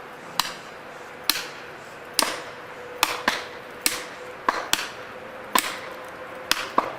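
Repeated sharp strikes of a hand tool, about eleven knocks at uneven intervals of roughly a second, some coming in quick pairs, over a faint steady hum.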